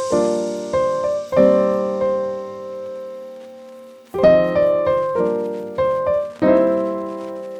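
Background piano music: slow chords struck and left to ring, with a short pause in the middle.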